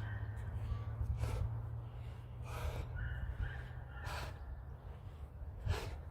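A man breathing hard with sharp, forceful exhales about every one and a half seconds while doing explosive lateral Heisman bounds, over a steady low hum.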